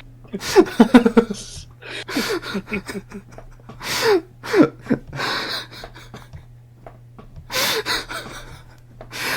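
A man laughing hard in irregular bursts, gasping for breath between them.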